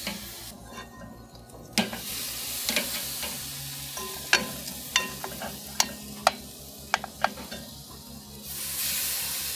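Barbecue-sauced rabbit wings sizzling on the grate of a charcoal kettle grill, a steady hiss with scattered sharp pops and clicks. The hiss swells briefly near the end.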